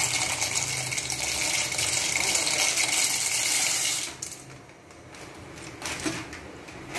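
Dry macaroni pouring from a plastic packet into a pot of boiling broth: a dense rattling hiss of pieces hitting the pot and the liquid, which stops abruptly about four seconds in. After that only faint bubbling and a couple of light knocks remain.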